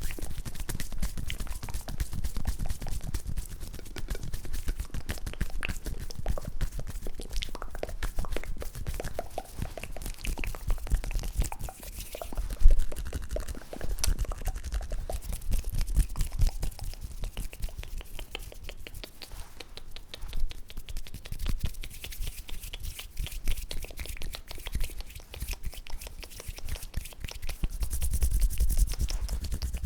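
Close-up ASMR hand and mouth sounds: a dense, irregular run of soft crackling clicks and smacks, with one sharper click about halfway through.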